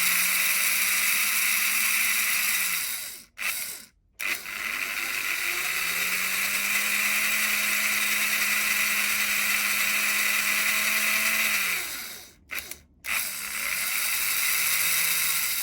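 Motor and gearing of a 1947 Märklin HR 800 N model steam locomotive running on the track, a steady whirring hum whose pitch rises as it speeds up and sinks as it slows. It stops briefly twice, about three seconds in and about twelve seconds in, then starts again. The locomotive is running well after its repair.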